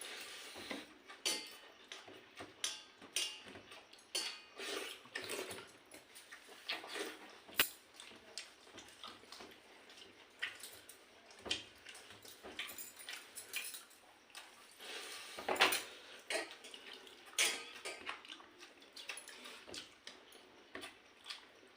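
Someone eating pakhala bhata, rice soaked in water: irregular small clicks and clinks on the plate mixed with wet eating noises, with a louder burst about fifteen seconds in.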